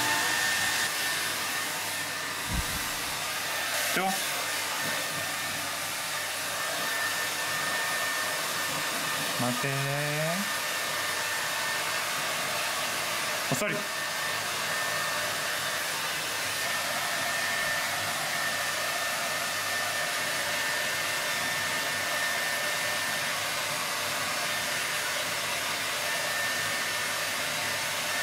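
Hair dryer blowing steadily with a thin, steady whine in its noise, drying a wet Shetland Sheepdog's coat after a bath.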